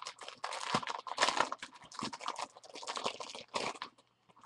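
Clear plastic packaging crinkling and rustling in the hands as an iPod Touch case is worked out of its bag, in quick irregular crackles that stop shortly before the end.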